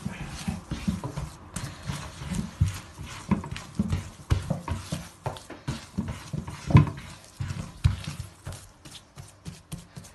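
Wet hands punching down and kneading risen bran-flour bread dough in a kneading bowl, knocking the air out of it: a run of soft, irregular slaps and thuds, several a second, the loudest about two-thirds of the way through.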